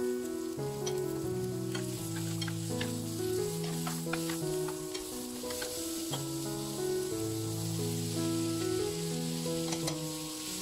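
Diced vegetables sizzling in a frying pan, with light clicks as sweet potato and zucchini cubes are tipped in and land on the pan. Background music with a slow melody plays throughout.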